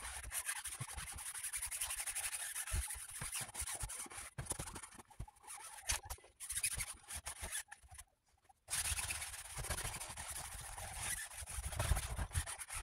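A paper towel rubbed over a guinea pig cage's floor liner, wiping it clean in irregular scratchy strokes with short pauses.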